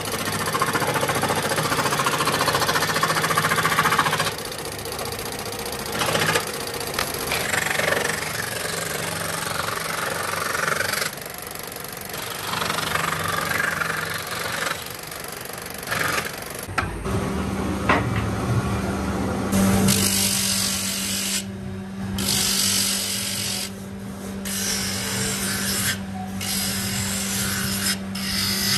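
A wooden-armed scroll saw runs, its blade cutting up and down through a wooden spoon blank. About 17 seconds in this gives way to the steady hum of a bench motor driving a sanding drum, with on-and-off bursts of rasping as a wooden spoon handle is pressed against the drum and lifted away.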